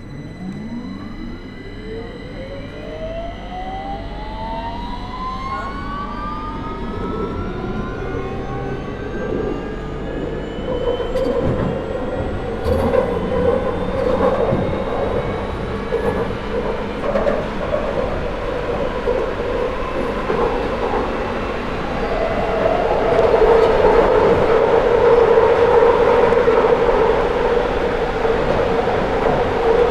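London Underground 2009 Stock train pulling away and accelerating. The traction motors give a whine that climbs steadily in pitch over the first ten seconds or so, then wheel-on-rail and running rumble builds with speed, growing louder after about twenty seconds.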